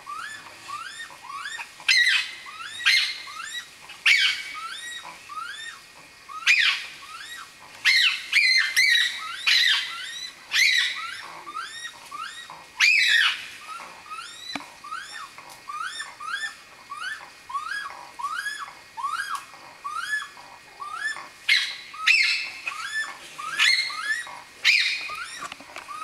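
An unidentified animal calling from a tree at night: a steady run of short rising notes, about two a second, with louder, harsher squawking calls breaking in every second or two.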